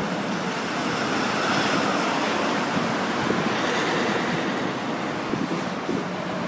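Steady city street noise from passing traffic: an even rumble and hiss.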